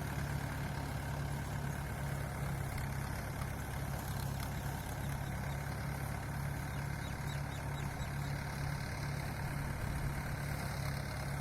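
Engine of the harvest machinery running steadily at an even idle-like hum, with no change in speed.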